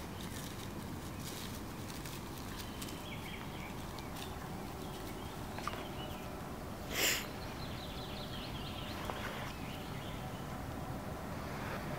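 Woodland outdoor ambience: a steady low background hiss with a few faint bird chirps about three seconds in, and one short, loud burst of noise about seven seconds in.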